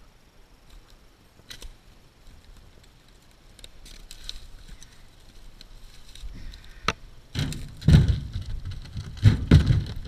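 Firewood rounds dropped into a steel ATV trailer bed, landing with heavy thuds twice, about 7.5 and 9.5 seconds in. A few sharp clicks come before them.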